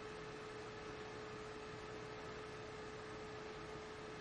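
Faint steady hum, one held tone over a low even hiss: background noise in the narration recording.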